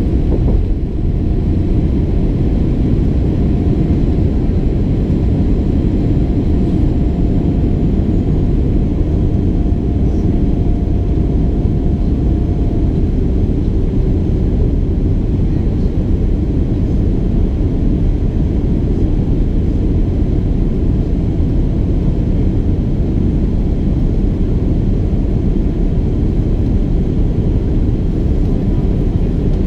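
Steady cabin noise of a Boeing 787-8 in its climb, heard inside the cabin by the wing: a deep, even rush of engine and airflow noise. A faint steady whine sits over it and stops about a third of the way through.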